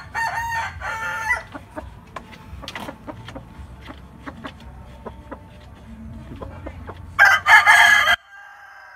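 Rooster calling: a loud two-part call in the first second and a half, then a loud crow about seven seconds in that breaks off suddenly. Light clicks and rustles from handling fill the gap between.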